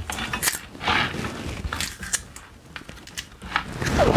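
Hand-handling noise of an e-bike wiring cable being fed under the frame by the mid-drive motor: scattered rustles and light clicks, with a brief squeak near the end.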